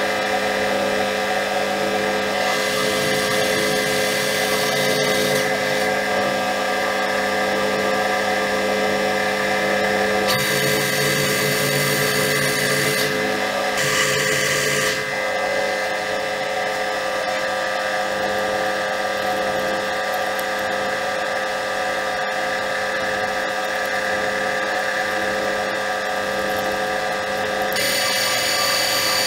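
Metal lathe running under power and cutting a thread into a steel shaft with a single-point tool. The machine's drive gives a steady whine, and a rougher cutting noise comes and goes in stretches.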